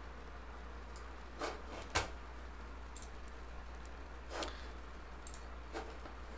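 Computer mouse clicking, about eight short scattered clicks, over a steady low hum.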